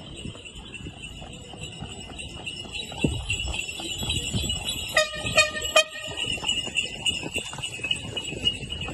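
A steady high ringing runs throughout over low street noise. About five seconds in, a short pitched tone sounds in a few quick pulses, like a small horn.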